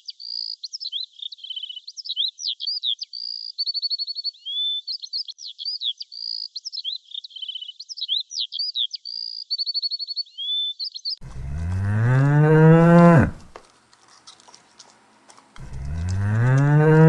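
A high-pitched song of chirps and trills repeats the same phrase for about eleven seconds. Then a cow moos twice, each moo about two seconds long, rising in pitch and then dropping away; the moos are the loudest sounds.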